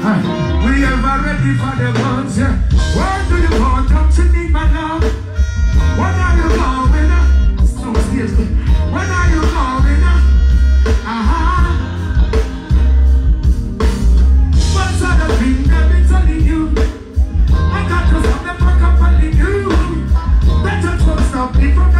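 Live reggae band playing loudly through a concert PA, with a heavy bass line, drums and electric guitar, and a voice singing over the band.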